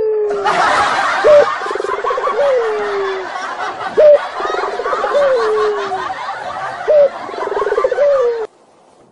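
A looped comic sound effect: a short sharp rising note followed by a rattling tone that slides down, repeated about every three seconds over crowd noise. It cuts off suddenly near the end.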